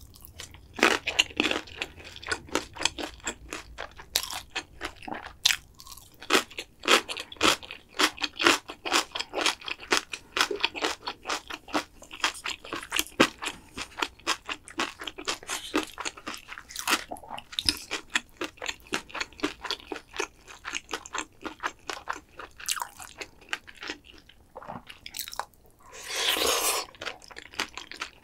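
Close-miked crunching and chewing of crispy fried food, a rapid, irregular run of sharp crackles with each bite.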